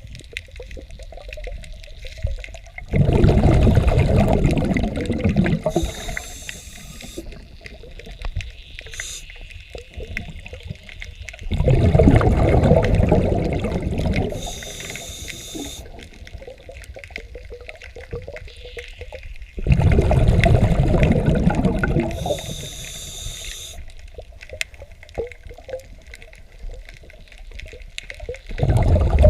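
Scuba diver breathing through a regulator, heard underwater: a loud bubbling rush of exhaled air about every eight seconds, each lasting around three seconds, with a short high hiss between them.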